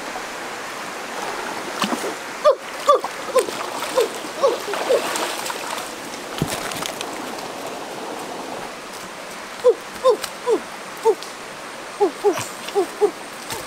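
Shallow rocky stream running steadily, with some splashing of water. Over it come short pitched calls repeated one after another, a bout a couple of seconds in and another from about ten seconds.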